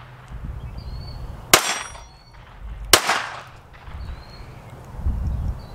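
Two gunshots about a second and a half apart, each with a short echo trailing off. They come from other shooters on the range, not from the pistol held in hand.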